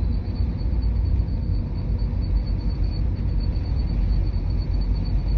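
Cabin of a BMW 218d Active Tourer at low road speed: a steady low road and engine rumble, with a thin high-pitched tone pulsing rapidly and evenly. The pulsing tone is the abnormal noise that appears between 20 and 40 km/h and seems to come from around the front passenger-side wheel, which a dealer could not reproduce.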